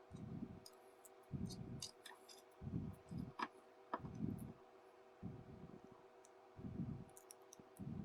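Hand-sewing a Velcro strap with needle and thread: soft rubbing and handling sounds repeat evenly about once every second and a quarter, as each stitch is worked, with light clicks in between. A faint steady hum sits underneath.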